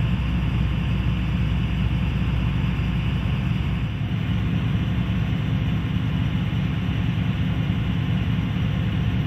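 Tugboat's engine running steadily, a continuous low drone with no change in speed.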